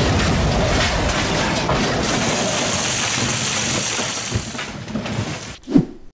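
Train crash sound effect of runaway trucks slamming into an engine: a loud, dense noisy rumble and rattle that holds for about five seconds, then dies away and cuts off near the end.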